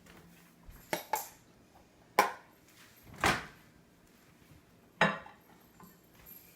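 Dishes and cutlery being handled on a counter: about five separate clinks and knocks, spaced a second or two apart.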